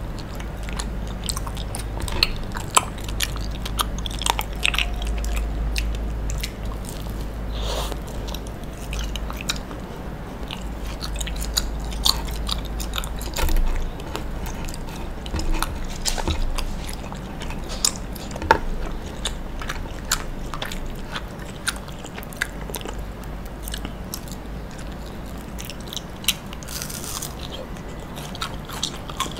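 Close-miked chewing and biting of grilled mochi: soft chewing of the chewy rice cake, broken by many short, crisp crackles from its toasted, burnt crust.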